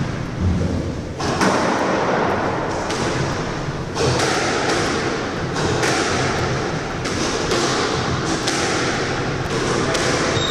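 A squash rally: the rubber ball is struck by rackets and smacks off the court walls, giving sharp hits about once a second or faster, each ringing in the enclosed court.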